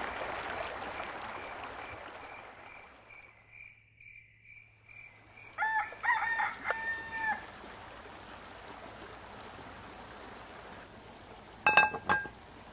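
A rooster crowing once, about six seconds in: a few short notes, then a long held note that falls away at the end. Near the end comes a brief, sharp ringing sound.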